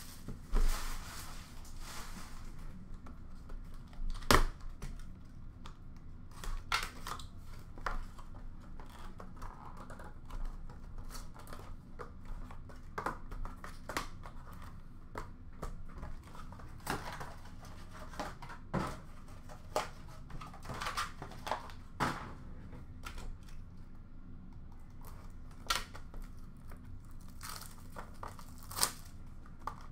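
Hands opening a sealed Topps Museum Collection baseball card box: plastic wrap crinkling and tearing, cardboard rustling, and scattered light knocks and taps as the packs are lifted out and stacked. The loudest knock comes about four seconds in.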